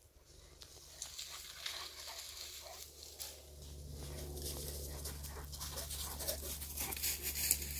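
Presa Canario dogs running through dry grass and leaf litter, with rustling and crackling footfalls and a dog panting as they come close. A low steady rumble comes in about halfway through.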